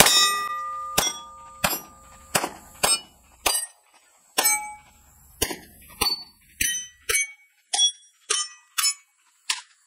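Springfield Hellcat Pro 9mm pistol fired about fifteen times at a steady pace, roughly a shot every half second to a second, each shot followed by the ring of a steel plate target being hit. The pistol cycles through its new 17-round magazine without a stoppage.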